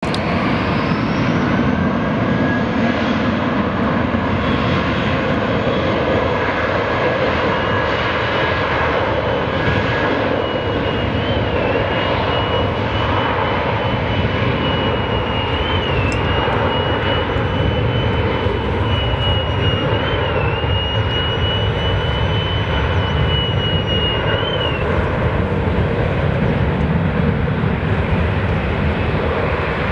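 Airbus A320-family airliner's twin jet engines at take-off power during the take-off roll. A steady, continuous roar with a thin high whine held through most of it.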